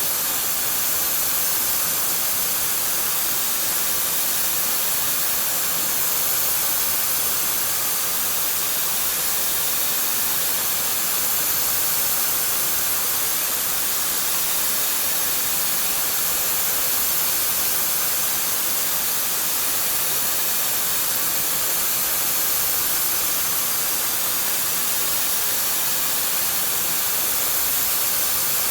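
CNC machine cutting a Ford 6.4L diesel piston, heard as a steady, even hiss.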